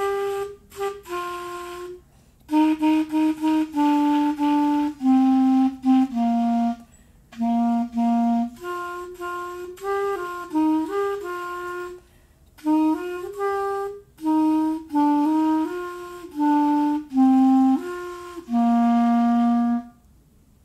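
Yamaha YCL-255 B-flat student clarinet played by a student. It plays a tune of single notes that step up and down, with short breaks for breath, and ends on a long held low note.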